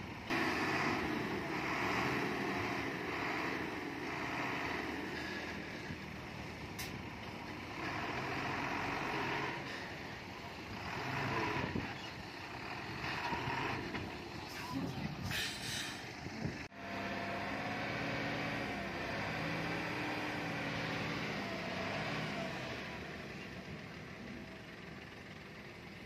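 Heavy diesel engines of a bulldozer and dump trucks working, their pitch rising and falling as they rev. There is a short hiss a little past the middle, and the sound changes abruptly about two-thirds of the way through.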